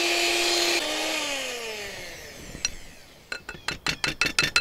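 Electric hand mixer whipping heavy cream, running with a steady whine that drops in pitch about a second in and winds down as it is switched off. A quick run of sharp taps and clicks follows near the end.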